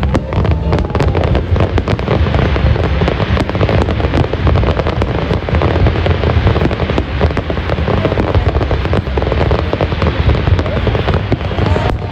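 Fireworks display: many shells bursting in quick succession, a dense run of sharp bangs and crackling over a steady low rumble of booms.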